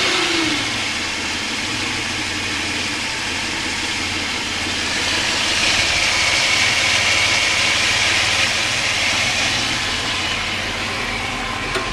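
Mitsubishi 3.0-litre 6G72 V6 idling steadily after a warm start. A high-pitched squeak rides over it and grows louder for a few seconds in the middle; the owner puts this down to a squeaky alternator.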